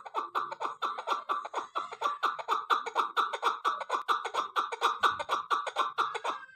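Six-month-old chukar partridge calling: a fast, even run of chuck notes, about five a second, growing a little louder over the first couple of seconds and stopping shortly before the end.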